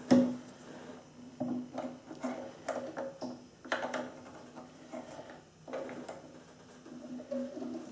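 Irregular metallic clicks and light knocks from parts of a South Bend drill press head being handled while the quill return spring is set, the sharpest click right at the start. A steady low hum runs underneath.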